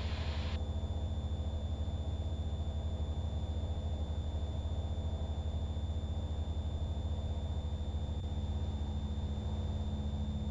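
Steady drone of a Cessna 172 Skyhawk's piston engine and fixed-pitch propeller in cruise, heard inside the cockpit.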